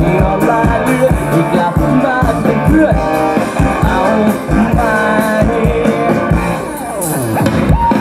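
Live pop-rock band playing a song with a steady drum beat, electric guitar and keyboards, heard through the stage sound system. The music thins out briefly about two-thirds through, then the beat comes back.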